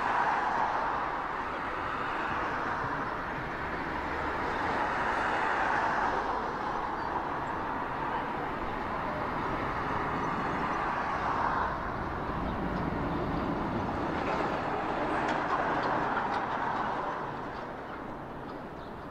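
Jet engines of a twin-engine airliner at climb thrust during a steep takeoff: a steady rushing noise that swells and eases several times.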